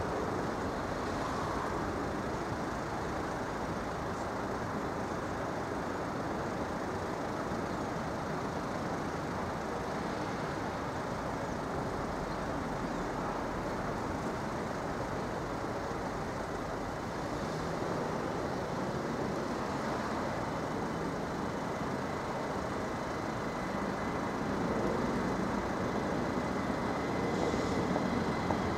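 Steady background street and traffic noise at a level crossing. It grows slightly louder in the last few seconds, when a faint high steady tone comes in.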